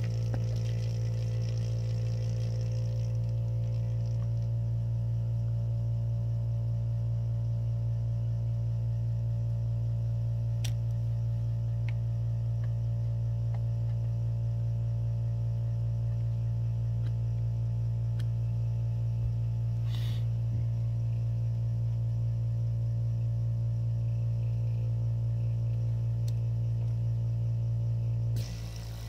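Small electric pump of a printhead cleaning device running with a steady low hum and a fast even pulsing; it stops for about a second near the end.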